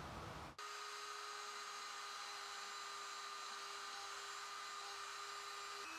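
Dremel rotary tool running at high speed, spinning a small wire brush against a brass metronome part: a faint, steady whine that starts about half a second in.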